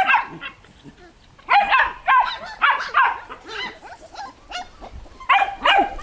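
Belgian Malinois puppies barking: short, high-pitched barks in clusters, starting about a second and a half in after a brief lull.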